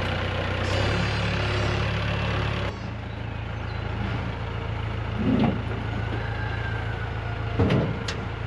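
An engine running at a steady idle; its note drops about a third of the way in. Two dull knocks come a little past halfway and near the end, the second followed at once by a short sharp click.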